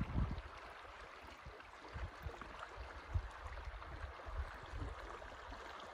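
Steady rush of flowing river water, with irregular low wind rumbles on the microphone that are strongest just at the start.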